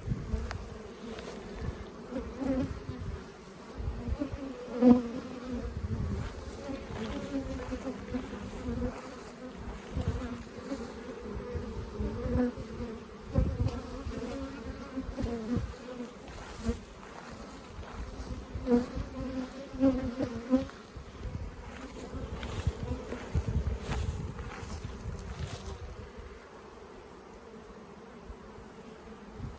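Honeybees buzzing around their hives, the buzz swelling and fading as bees fly past, agitated after weed eating around the hive entrances. Some uneven low rumble runs underneath.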